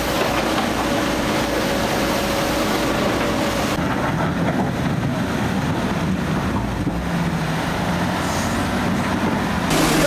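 Muddy floodwater rushing through a street with a dense hiss. About four seconds in, this cuts to the diesel engine of a wheel loader running steadily as it clears flood mud. The rushing water returns just before the end.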